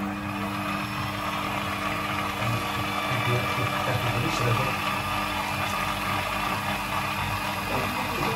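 Electric stand mixer running steadily, its motor and gearing kneading bread dough in a stainless steel bowl: a constant hum over an uneven low churning.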